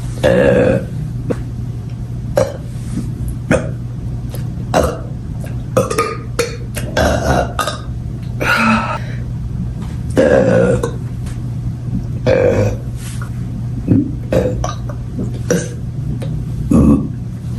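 A person burping over and over, about a dozen burps of varying length, some short and some long and drawn out, the longest around the middle. A steady low hum runs underneath.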